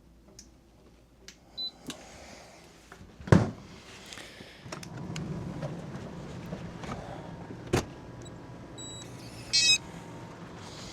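Furrion RV refrigerator being switched back on after a defrost: a short electronic beep, a loud thump, then a steady low hum that starts about five seconds in. A second knock follows, and a quick run of high electronic beeps comes near the end.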